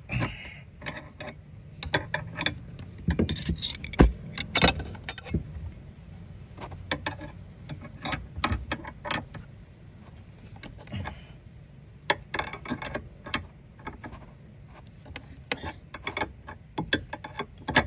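Irregular metallic clicks, clinks and rattles of tools and metal parts being handled during hands-on work on a car's air-conditioning pipe fitting. They come in clusters, busiest a few seconds in and again past the middle, over a faint low hum.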